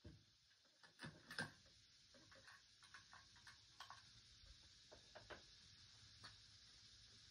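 Near silence with faint, irregular ticks and clicks, the strongest cluster about a second in and scattered smaller ones after.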